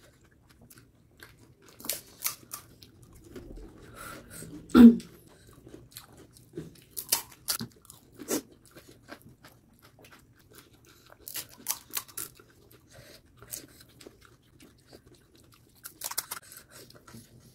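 Crisp fried puri shells (fuchka) cracking and crunching as they are poked open and bitten, with chewing between. Irregular sharp cracks come in clusters, the loudest about five seconds in.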